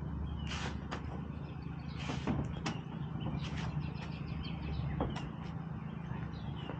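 Fishing kayak hull sliding and scraping against the SUV roof rack as it is pushed up, with short scrapes and scattered knocks over a steady low hum.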